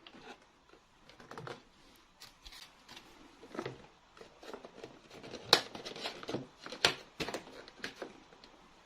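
Hands handling small plastic toy pieces and packaging: irregular clicks, taps and crinkles, the sharpest about five and a half and seven seconds in.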